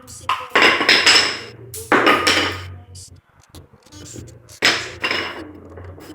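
A metal pot being banged like a drum by a small child: loud clanging hits with a metallic ring, in three bunches with quieter gaps between.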